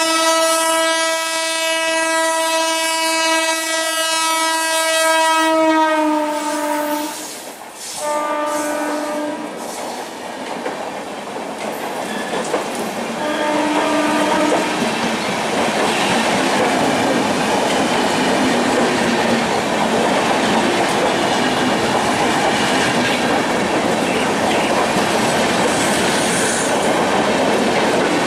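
Indian Railways locomotive horn sounding one long blast whose pitch drops slightly as it passes, then two short blasts. The steady rumble and clickety-clack of the passing train's coaches on the bridge follow.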